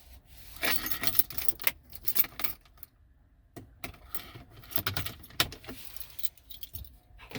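A bunch of keys jangling and clinking as they are handled, in two spells with a short pause about three seconds in.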